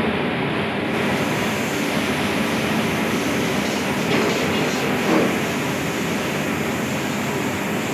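Stir-frying noodles in a wok over a gas burner: a steady roar and sizzle, with a few sharp knocks about four and five seconds in.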